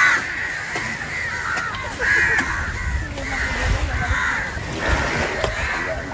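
A flock of crows cawing over and over, many calls overlapping.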